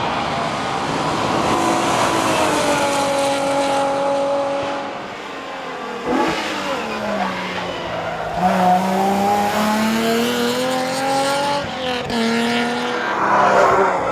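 Alfa Romeo GTV6's V6 engine being driven hard. The revs hold, then fall away for a few seconds as the car slows. They climb again, drop sharply at a gear change about twelve seconds in, and rise once more.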